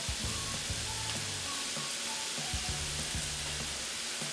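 Ground meat sizzling in a frying pan as chopped onion is scraped in off a knife, with a few short knocks of the blade and pan. Light background music with held low notes plays underneath.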